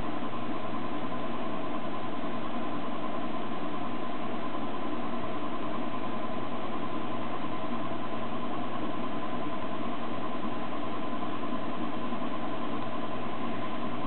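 Steady machine-like hum and hiss with a thin, high whine, unchanging in level.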